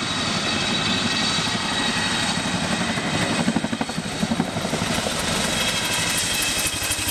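Chinook tandem-rotor helicopter flying low past, its rotor blades making a rapid, continuous chop over a steady high whine. The chop pulses more strongly about halfway through.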